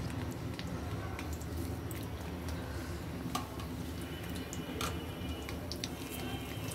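Sliced onions and dried red chillies frying in hot oil in an iron karahi: a steady sizzle with scattered pops and crackles, the onions being fried crisp into beresta.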